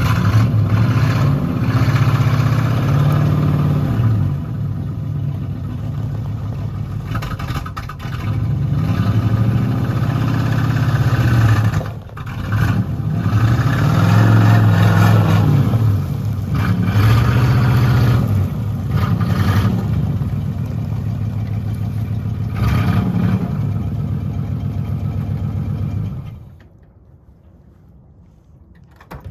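Supercharged small-block Chevy V8 in a 1984 Camaro Z28, running on its first start after reassembly. It runs rough, its revs rising and falling over and over as the throttle is worked to keep it alive, and it cuts out suddenly near the end. It still needs its carburettor tuned and its timing adjusted.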